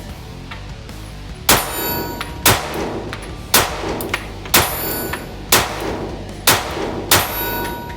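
Springfield Hellcat Pro 9mm pistol being fired at a slow, steady pace: seven shots about a second apart, a short ringing tone lingering after each.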